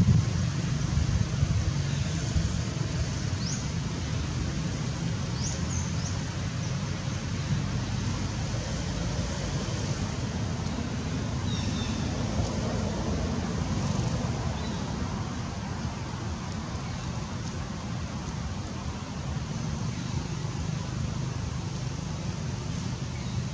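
Steady low outdoor rumble and hiss, with a few brief high chirps, most of them in the first six seconds and one near the middle.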